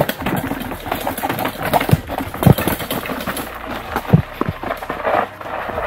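Mountain bike riding down a flight of stairs: a continuous clattering rattle from the bike, broken by hard thumps as the tyres drop down the steps. The loudest thumps come about halfway through and again near the end.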